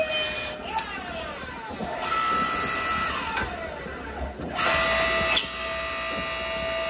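Log-splitter forging press running: its motor and hydraulic pump make a steady whine that slides down and back up in pitch several times as the ram presses hot steel and retracts. There is a sharp click a little past halfway.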